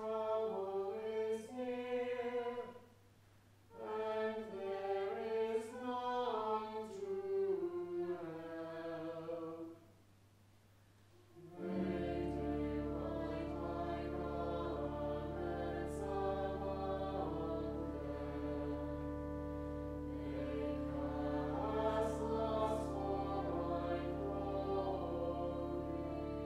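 Church choir singing unaccompanied in two phrases, each followed by a short break. About twelve seconds in, an organ comes in with sustained chords and low bass notes, and the choir sings on with it.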